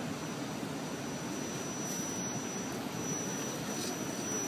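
Axial SCX10 RC rock crawler's electric motor and gearing running as it creeps over rocks: a thin high whine that cuts out and comes back a few times, over a steady rushing noise.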